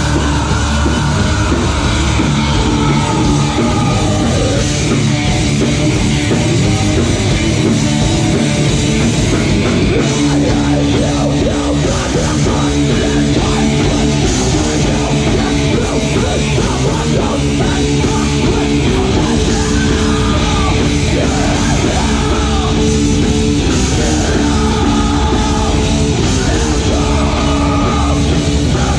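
Live metalcore band playing loud, with distorted guitar, bass and drums under screamed vocals.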